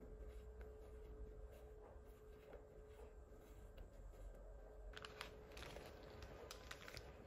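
Faint rustling and clicking of a stack of die-cut paper stickers being flipped through by hand, with sharper crackles about five seconds in and again near the end, over a faint steady hum.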